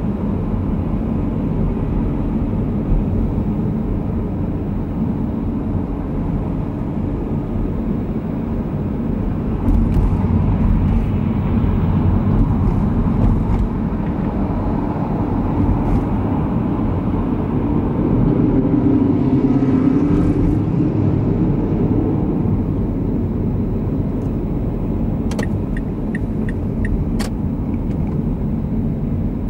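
Steady road and engine noise from inside a car driving along a city road: tyre rumble and a low drone, swelling slightly around two-thirds of the way in. A short run of light, evenly spaced ticks comes near the end.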